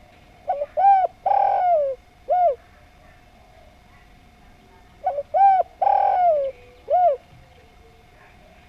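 Spotted dove (derkuku) cooing: two phrases about four seconds apart, each a few short coos around one longer drawn-out note.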